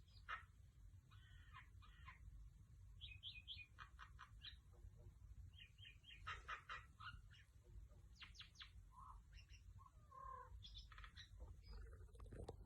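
Pet mynah bird calling faintly: a varied run of short chirps, clicks and whistled notes, with a few lower gliding notes later on.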